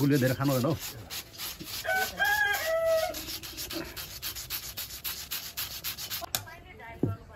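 Rapid, rhythmic scraping strokes, several a second, that stop abruptly about six seconds in. A rooster crows once in the background about two seconds in.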